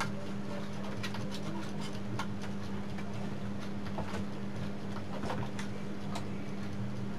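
Small irregular clicks and ticks, about one or two a second, from wires and connectors being handled on a CRT television's chassis board, over a steady low hum.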